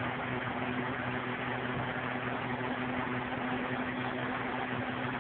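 Steady room tone: a low, even mechanical hum with hiss, unchanging throughout.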